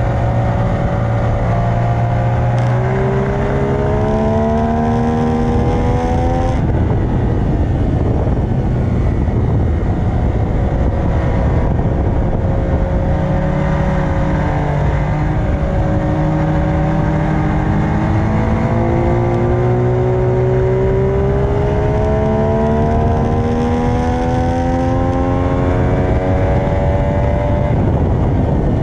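Sport bike engine heard onboard, revving hard under acceleration with its pitch climbing, then dropping as the throttle shuts about six seconds in. It runs lower through a slow corner, then climbs again in a long pull from about nineteen seconds and falls away near the end as the bike brakes. Constant wind rush over the microphone throughout.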